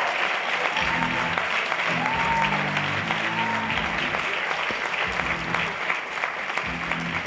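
Audience applauding steadily over background music.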